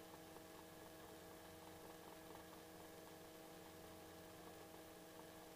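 Near silence: a faint, steady electrical hum of several tones on the helicopter's intercom audio line, with the engine and rotor noise kept out of the recording.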